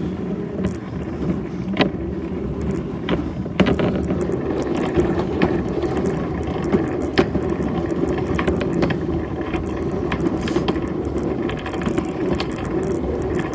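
Wheeled cart rolling over pavement: a steady rumble from the wheels with irregular clicks and rattles throughout.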